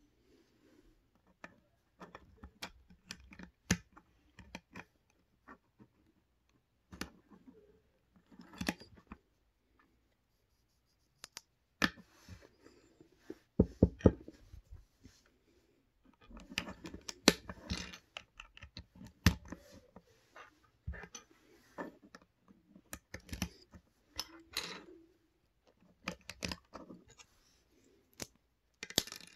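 Plastic LEGO bricks and Technic parts clicking and rattling as they are handled and fitted together, in irregular runs of small clicks with a short pause about ten seconds in.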